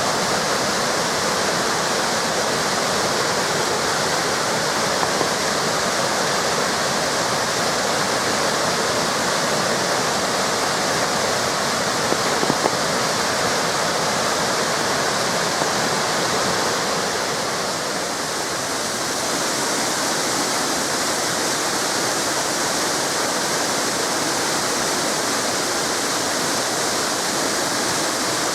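Waterfalls and cascading river water rushing steadily, a dense even hiss of falling water.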